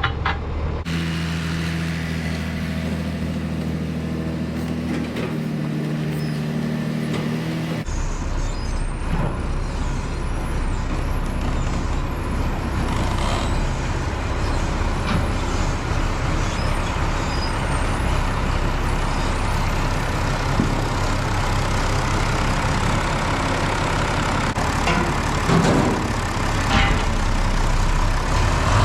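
Farm tractor engine running steadily, its sound changing abruptly about a second in and again about eight seconds in.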